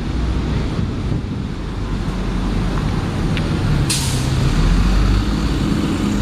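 A bus's engine running with a low rumble, and a sharp hiss of its air brakes about four seconds in.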